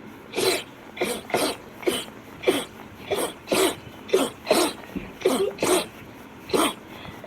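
A girl sneezing rapidly: a quick run of about a dozen short sneezes, roughly two a second, with a brief pause after about six seconds.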